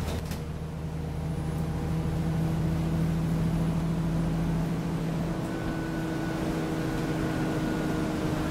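Inside an Alexander Dennis Enviro400 double-decker bus on the move: a steady engine and drivetrain drone. About halfway through, the note changes and a faint higher whine comes in.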